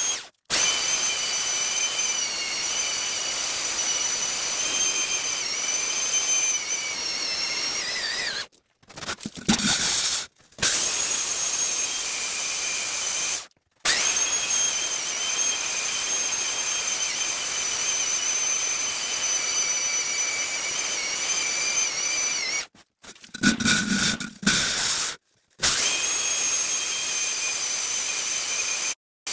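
Handheld electric core drill with a large hollow core bit boring into soft rock: a steady high motor whine over a grinding hiss, its pitch sagging now and then as the bit bites under load. The sound cuts off suddenly several times and starts again.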